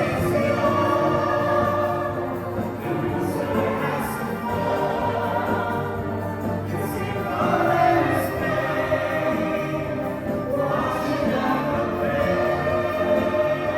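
Choir singing sustained chords over instrumental accompaniment, a live ensemble rehearsing a song.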